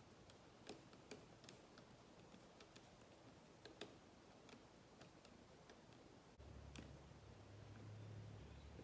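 Near silence with faint, scattered light clicks of small parts being handled. A low steady hum comes on suddenly about six seconds in.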